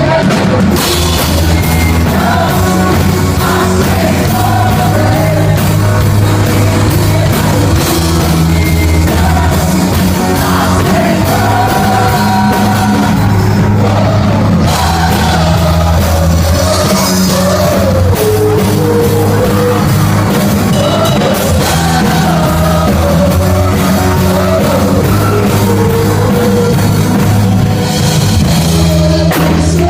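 Christian rock worship song with band and drum kit and a singer's voice over it.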